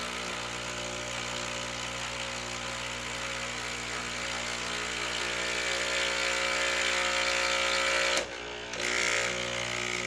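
Capsule coffee machine's water pump buzzing steadily as it pushes hot water through with no capsule in, on a water-only test run after the heater connection was reconnected. The buzz drops out briefly about eight seconds in, then starts again.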